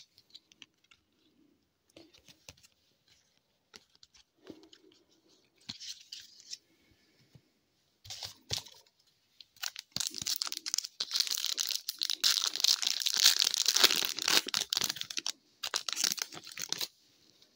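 Plastic foil wrapper of an Upper Deck hockey card pack being crinkled and torn open. A few soft rustles come first, then from about ten seconds in a long, loud stretch of crinkling and tearing.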